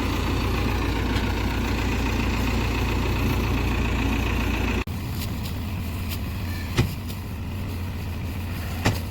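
Diesel engine of a JCB 3DX backhoe loader running steadily. The sound changes abruptly about halfway through, and two short sharp knocks follow in the second half.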